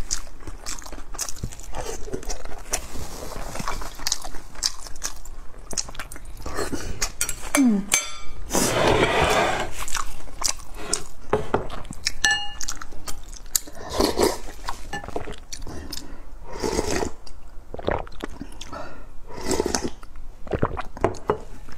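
Close-miked eating of boiled dumplings: chewing and biting with wet mouth clicks, and sips of soup from a bowl near the end.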